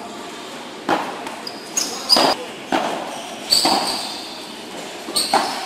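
Padel ball struck back and forth with solid padel paddles: a string of sharp, irregular pocks, sometimes two in quick succession, each echoing in the covered court.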